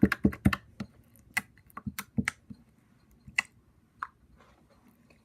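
Slime being squeezed and stretched in the hands, making sharp clicking pops: a quick run of clicks at the start, then scattered single pops that die away about four seconds in.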